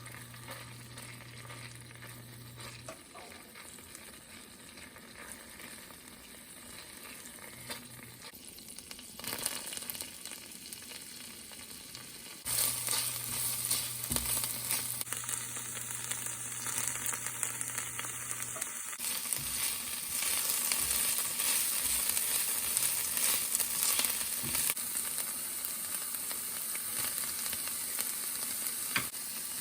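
Food sizzling as it fries in hot oil in a pan, with occasional knocks of a utensil stirring. The sizzle turns sharply louder about twelve seconds in and stays loud.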